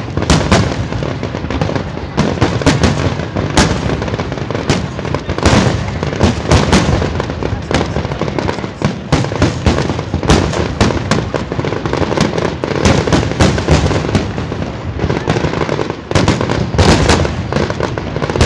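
Aerial fireworks display: a dense run of shell bursts, several bangs a second one after another with hardly a gap.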